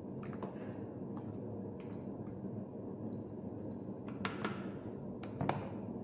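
A few light clicks and taps as a black pepper bottle and a plastic spoon are handled while seasoning, the sharpest two in the second half, over a steady low background hum.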